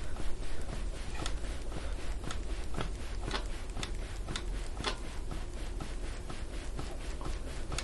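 Hands working over a person's back during soft-tissue work: an irregular run of soft, short scratchy clicks from skin and clothing rubbing, several a second.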